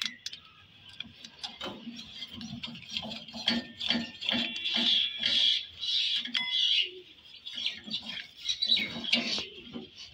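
Small birds chirping and squawking over and over, with short clicks and scrapes from a screwdriver turning the screws of a gas fryer's pilot-burner rail.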